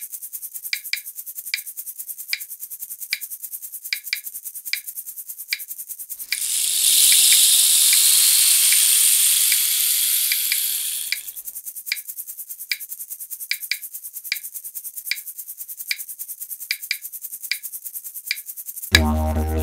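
A nature soundscape of high insect-like buzzing with irregular sharp clicks. About six seconds in, a loud rush of rain comes in for about five seconds and stops. Near the end a didgeridoo drone begins.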